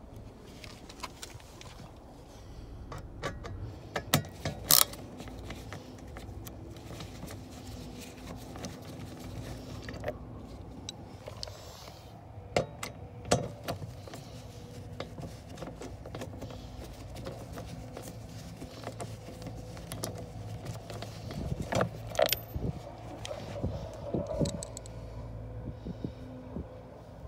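A screwdriver with a socket extension being handled and turned on the fasteners of a car's lower dash trim: irregular clicks, knocks and light metal clatter against plastic, loudest in a few short clusters.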